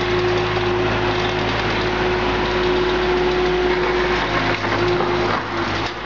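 Engine of a small wheeled stand-on skid steer loader running steadily under load as the loader drives and pushes dirt, with a steady whine over the engine note. The sound dips briefly near the end.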